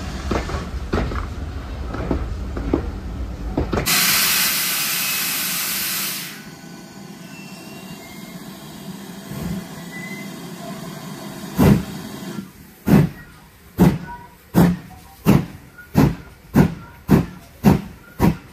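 Steam train coaches rumbling past with wheels clicking over the rail joints. Then a steam locomotive lets off a loud hiss of steam for about two seconds. Later the GWR 4200 class 2-8-0 tank engine starts away, with one heavy exhaust chuff followed by a steady run of chuffs that quicken to about two a second.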